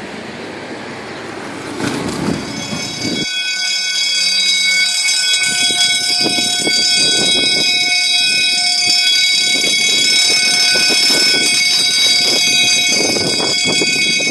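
Level-crossing warning bell ringing as a set of steady high tones, over the rising rattle and rumble of a MetroValencia train. It begins abruptly about three seconds in, after a stretch of wind-like noise.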